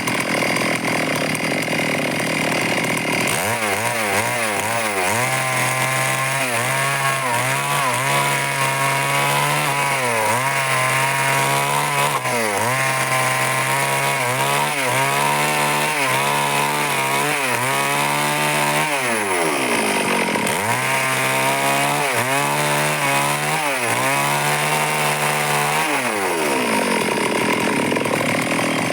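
Stihl chainsaw running at high revs while cutting wood, its engine pitch dipping and climbing back again and again.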